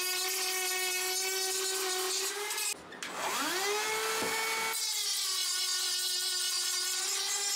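Flex-shaft rotary tool with a sanding drum, sanding the seams of 3D-printed plastic parts: a steady high whine over a sanding hiss. About three seconds in it stops briefly, then spins back up in a rising whine and runs steadily again.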